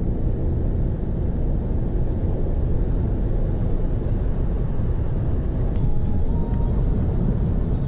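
Steady low rumble of tyre and engine noise inside a car's cabin, heard as it drives at speed on an expressway.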